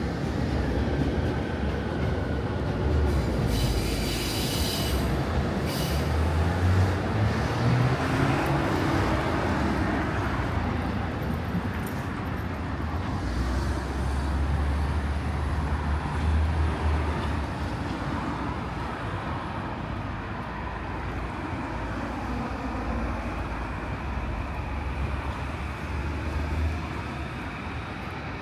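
Commuter train running past on the tracks with a steady heavy rumble of wheels on rail. A brief high wheel squeal comes about four to six seconds in, and the rumble fades over the last ten seconds.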